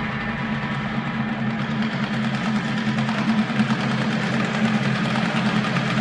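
Percussion ensemble playing a dense, steady rapid roll on drums, growing a little louder about halfway through.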